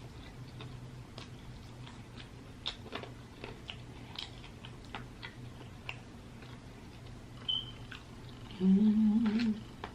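Close chewing and wet mouth clicks of someone eating a KFC fried-chicken meal with their hands. Near the end comes a short, loud closed-mouth "mmm" hum.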